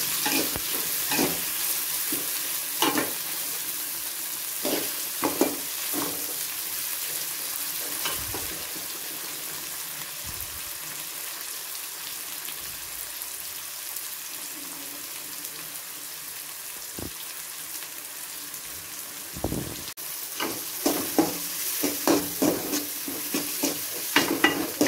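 Chopped onion, tomato and green chillies sizzling in oil in a hammered aluminium kadai while a metal spatula scrapes and knocks against the pan as they are stirred: the tomato is being sautéed until soft. The stirring comes in bursts near the start and again near the end, with a stretch of mostly plain sizzling between.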